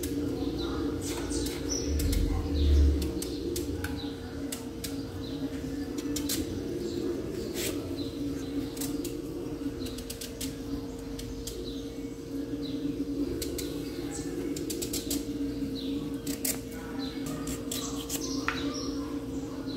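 A kitchen knife scraping seeds and stringy pulp out of raw pumpkin slices, with seeds dropping onto a small plate: irregular light scrapes and clicks, a few low knocks in the first few seconds, over a steady hum.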